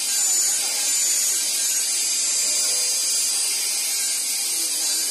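Steady high-pitched whine and hiss of machinery running in a metalworking shop, unchanging throughout.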